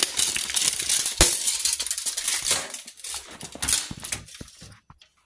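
Rattling, scraping handling noise with many sharp clicks, thinning out near the end.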